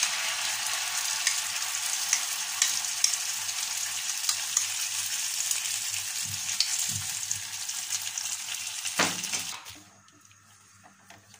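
Tomato sauce sizzling in hot olive oil in a frying pan, stirred with a wooden spatula. A brief louder burst comes near the end, and then the sizzling suddenly dies away.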